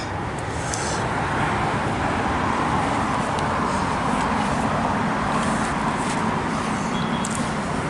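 Road traffic noise: a steady, even rush of passing vehicles with no distinct knocks or footsteps.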